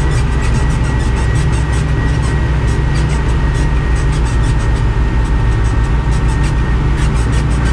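1991 Deutz-Fahr DX 3.60 tractor's air-cooled diesel engine running steadily, with a steady high whine over the engine noise.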